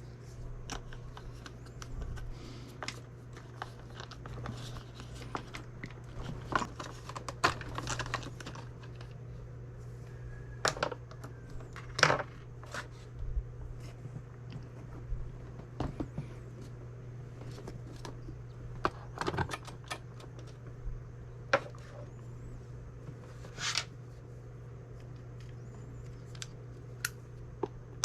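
Scattered clicks and clatters of small tools and parts being handled as RC truck wheels and hub nuts are worked on with a hub nut wrench, over a steady low hum.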